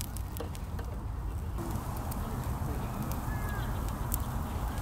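Steady low wind rumble on the microphone outdoors, with scattered light clicks and a single short bird chirp about three seconds in.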